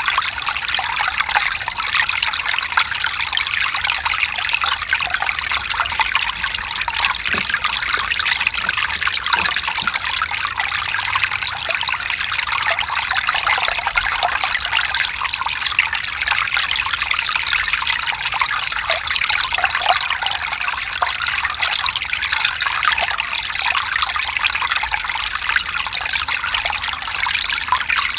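Mountain stream running over rocks: a steady, even rush and trickle of water.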